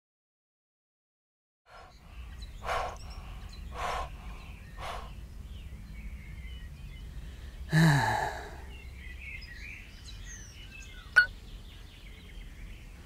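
Cartoon sound-effect bed of faint birds chirping over a low steady hum, starting after a moment of silence. About eight seconds in, a man's sigh drops in pitch, and a sharp click follows near the end.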